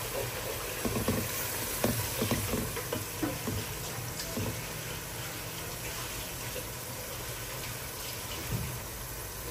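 A pot of curry cooking on the stove: a steady sizzling hiss, with a few light knocks in the first few seconds.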